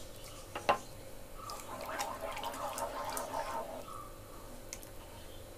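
A spatula stirring and mashing a thin milk-and-flour mixture in a steel pan, wet squelching and lapping, with a sharp knock against the pan about a second in.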